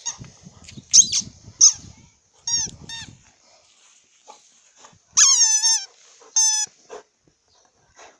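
A rubber chicken squeak toy being chewed by a dog: a run of high, pitched squeaks, several short ones in the first three seconds and a longer one about five seconds in, with soft chewing and rustling noises under the early squeaks.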